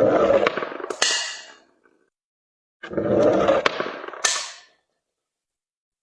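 Something being crushed through a cutter, twice: each time a crunching rumble that ends in a sharp crack, the second about three seconds after the first.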